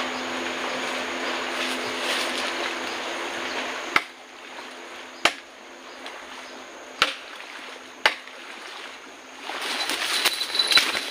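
A passing boat's motor running steadily, cutting off abruptly about four seconds in. After it, a quieter wash of water on the riverbank with a few sharp clicks, and the noise builds again near the end.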